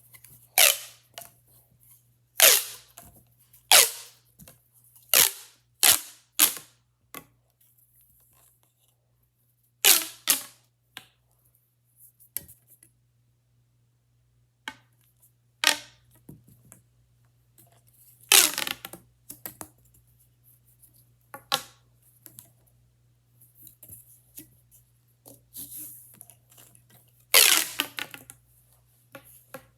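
Plastic pop tubes being stretched and squashed, giving a string of sharp pops and short crackles at irregular intervals, with a few pauses of several seconds.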